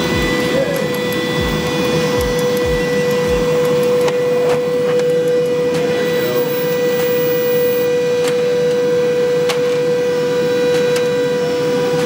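Glowforge laser cutter's fans running with a steady whooshing hiss and a steady hum. A few low thumps in the first few seconds.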